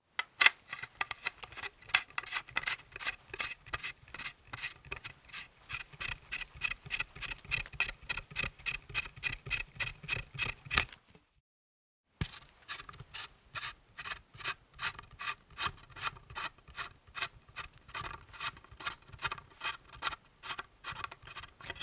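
Billiard balls clicking against each other in quick, even succession, about four sharp clacks a second, in two long runs with a silent gap of about a second between them.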